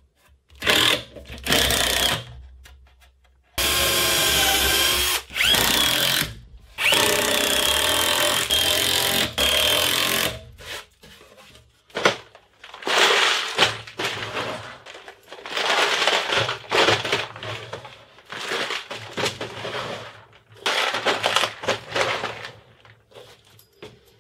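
Cordless driver whirring in about six short runs as it drives screws into plywood, each run a steady high whine that stops abruptly. After that, irregular scraping and knocking as plastic organiser cases are slid onto the plywood shelves.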